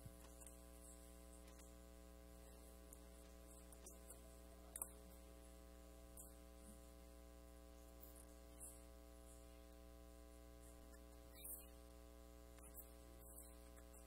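Near silence: a steady electrical mains hum, with a couple of faint clicks.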